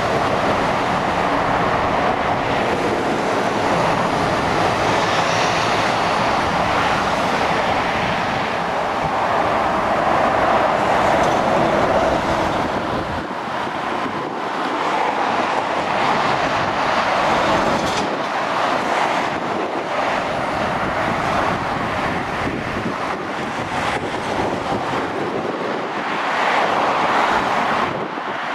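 Motorway traffic going by: the steady tyre and engine noise of lorries and cars, swelling as groups of vehicles pass and easing a little between them.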